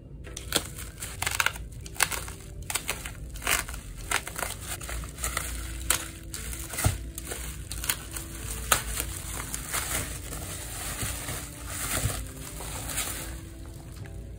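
Plastic bubble-wrap mailer crinkling and crackling as hands handle and open it, with many sharp, irregular crackles.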